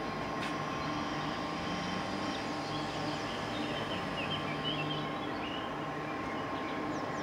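Outdoor ambience: a steady rushing noise with a faint hum under it, and birds chirping high and briefly through the middle.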